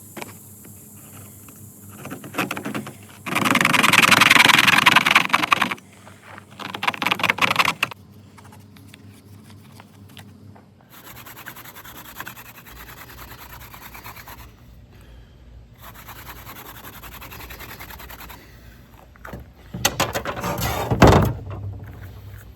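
Hand-drill friction fire: a thin horseweed spindle spun between the palms, scraping and rubbing against a cardboard fireboard in several bursts, loudest about four seconds in and again near the end. The spindle is too small, so it bores straight through the cardboard without making enough heat to char.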